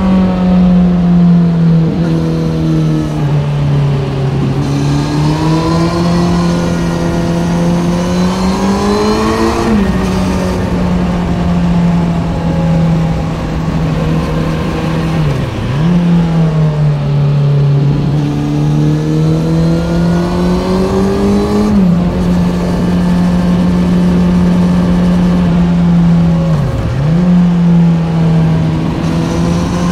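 Kawasaki Z900's inline-four running through a complete Ixil SX1 aftermarket exhaust while being ridden. The engine note holds steady, climbs slowly twice as the revs build, and drops back sharply after each climb. Twice the revs dip briefly as the throttle comes off and back on.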